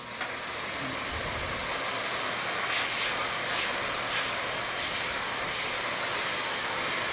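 Vacuum cleaner switched on, its motor whining up to speed at the start, then running steadily on its lowest setting as it is used on a shedding horse's coat to suck up loose hair.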